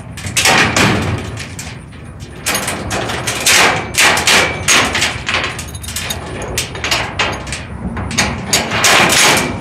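A run of irregular metal clanks, knocks and rattles from a steel-framed expanded-metal trailer tailgate as it is held upright and worked on at its hinge. The loudest clusters come in the first second, around four seconds in, and just before the end.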